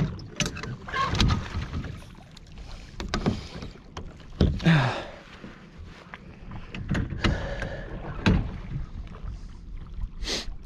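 Kayak paddle swishing and splashing through the water in irregular strokes a second or two apart, with small knocks against the kayak's plastic hull.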